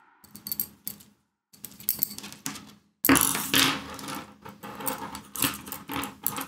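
Clicking and clattering of keys being typed: short scattered runs of clicks, then a faster, louder typing clatter from about three seconds in.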